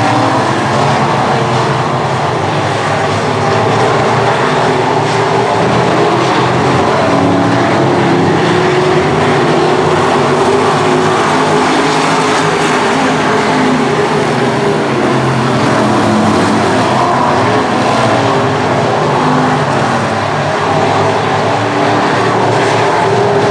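Several USRA B-Modified dirt-track race cars' V8 engines running hard at racing speed, loud and steady.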